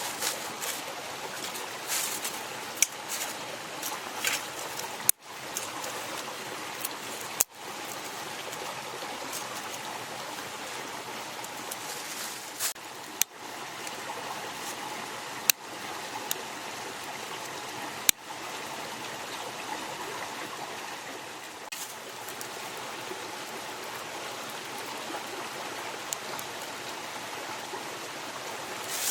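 Mountain stream flowing steadily, with a few sharp clicks or crackles scattered over the first two-thirds.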